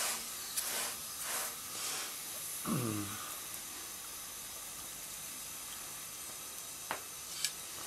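Gözleme cooking on a hot copper griddle tray over a gas burner, giving a faint steady hiss. A few brief rustles of the dough being turned come in the first two seconds, a short falling vocal sound about three seconds in, and a sharp click near the end.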